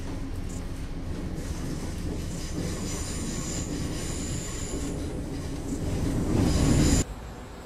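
A steady low rumble with a high squeal joining in after a couple of seconds, both growing louder and then cutting off abruptly near the end.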